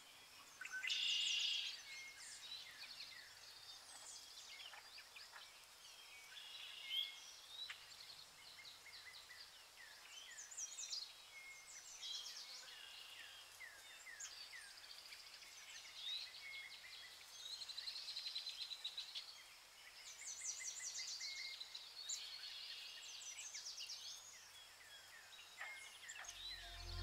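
Small songbirds chirping and trilling, many short calls and quick falling notes overlapping, with a louder burst of calls about a second in.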